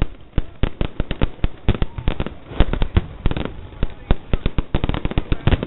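Firecrackers going off in quick, irregular succession: many sharp bangs, several a second, with voices underneath.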